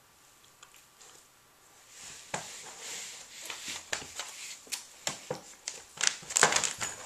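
Irregular scratching, rustling and knocking of a dog's paws and claws on a fabric pad and a plastic wading pool as the mother dog gets up from her puppies and climbs out. It starts about two seconds in and is busiest and loudest near the end.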